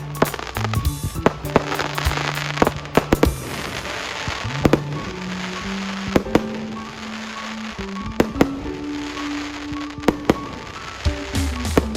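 Fireworks going off in an irregular string of sharp bangs and crackles, over music with long held notes.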